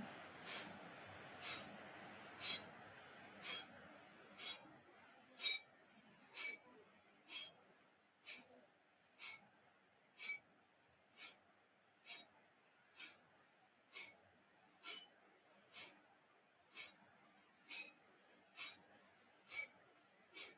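Kapalbhati breathing: short, forceful exhalations pushed out through the nose by snapping the belly in, about one a second, with the passive inhales between them barely heard.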